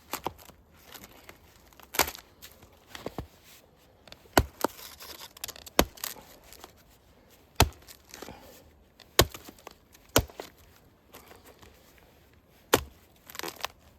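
Sharp wooden cracks, about seven of them one to two seconds apart, with crunching and rustling between: firewood being broken up by hand or with a hatchet.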